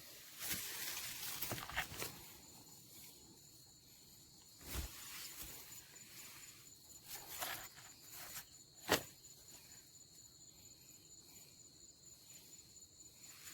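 Steady high-pitched insect drone, with a few scattered rustles and a sharp click about nine seconds in.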